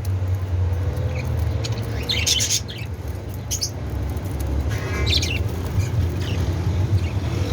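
Budgerigars chirping in short scattered bursts, over a steady low hum.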